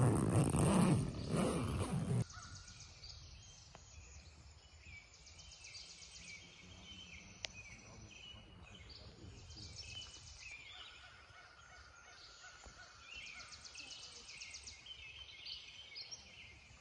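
Night insects chirping and trilling in quick repeated pulses, high-pitched, with a thin steady tone held for a few seconds about halfway through. It opens with about two seconds of loud rushing noise that cuts off suddenly.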